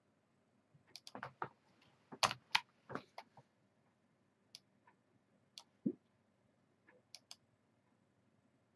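Clicks and taps of a computer mouse and keyboard: a quick cluster of clicks and knocks about a second in, then single clicks every second or so.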